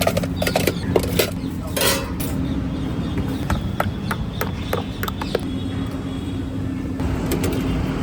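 Scattered sharp clinks and knocks of metal cooking utensils at a street food stall, over a steady low hum of street noise.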